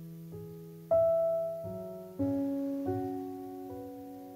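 Slow, gentle piano playing a song introduction: a new chord struck every second or so, each left to ring and fade, the loudest about a second in.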